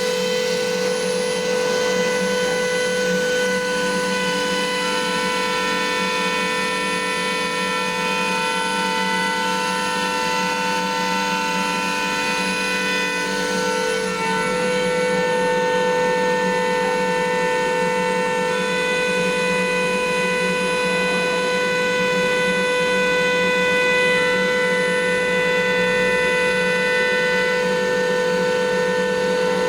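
Spindle of a 4-axis CNC machining center running as the cutter engraves a metal tire mold: a steady machine whine of several held tones, which shift slightly about halfway through and again a few seconds later.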